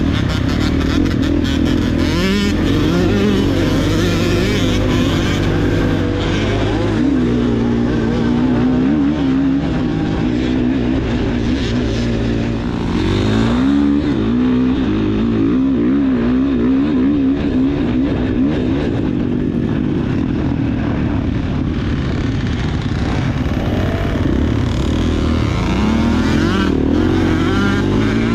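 Dirt bike engine running hard while being ridden, its pitch rising and falling constantly as the throttle is worked.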